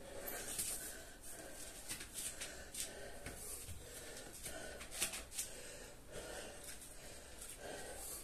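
A man breathing hard and fast, short puffs of breath one after another, from the exertion of a kettlebell workout.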